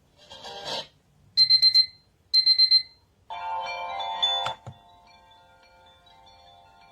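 Sunrise alarm clock's built-in alarm sounds through its small speaker: two short bursts of rapid high beeping about a second apart, then a chiming melody starting about three seconds in that settles into softer ringing tones.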